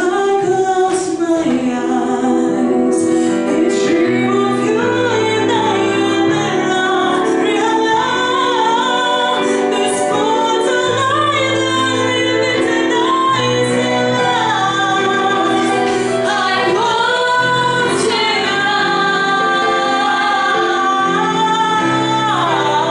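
A woman singing a slow ballad into a microphone with a digital piano accompanying her, the voice sliding between long held notes over sustained piano chords.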